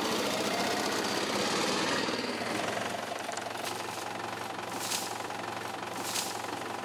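Vehicle engines: an auto-rickshaw engine as it drives past, then a tractor engine running steadily, with three sharp knocks in the second half.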